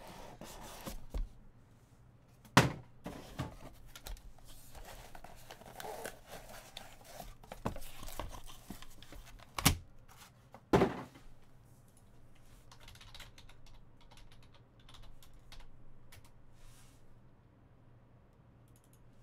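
Cardboard trading-card box and its packaging being handled and opened: rustling and tearing, with three sharp knocks, one a few seconds in and two close together near the middle, then fainter scattered clicks.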